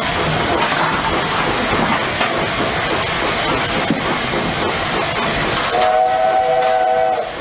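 Steady steam hiss on the footplate of LNER A4 Pacific steam locomotive No. 60007. Near the end the locomotive's chime whistle sounds for about a second and a half, a chord of three steady notes.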